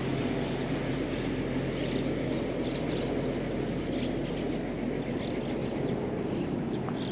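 Cat rubbing its cheek and fur against a wooden post and the grass close by: scattered short rustles over a steady low rumble, with a low hum that fades out about two and a half seconds in.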